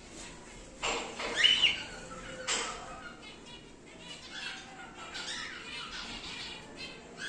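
Cockatiels calling: a few loud squawks from about one to two and a half seconds in, one of them a curving whistled note, then softer chattering.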